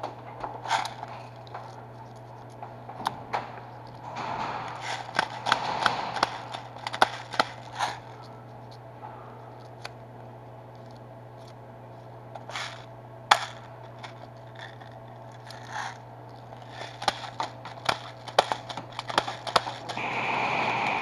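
Gear being handled: scattered sharp clicks, scrapes and rustling, busiest in the first few seconds and again near the end, with one sharper click about halfway through. A steady low hum runs underneath.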